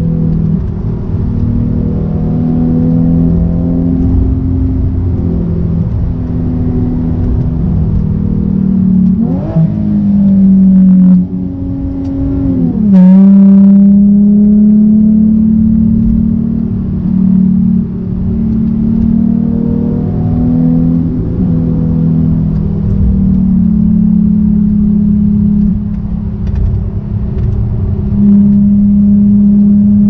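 Nissan 370Z's 3.7-litre V6 engine heard from inside the cabin while driving. The engine note holds steady and shifts in pitch, with the revs sweeping sharply up and back down about ten seconds in and again near thirteen seconds.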